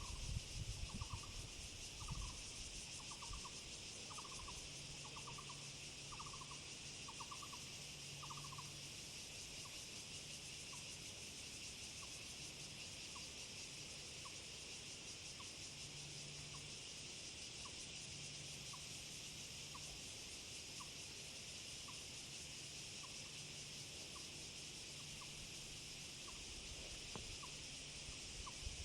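Faint countryside ambience: a steady high insect chorus, over which a short call repeats a little more than once a second. The calls are trilled for the first several seconds and become single short chirps after that.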